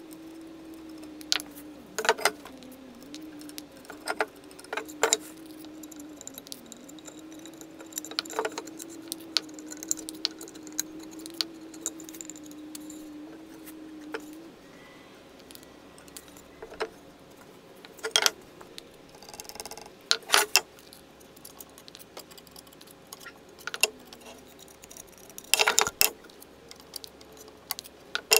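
Scattered sharp clicks and knocks, some in quick pairs, as wooden joint parts and a metal bar clamp are handled during the glue-up of a mortise-and-tenon joint, with a steady low hum that stops about halfway through.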